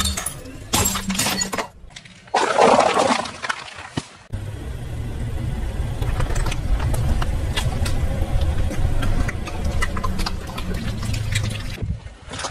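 Car tyre rolling slowly over small objects and crushing them, with crackling, crunching and wet squelching as a blob of slime is flattened. The car's engine rumbles low underneath. The sound cuts abruptly twice, about two seconds in and near the end.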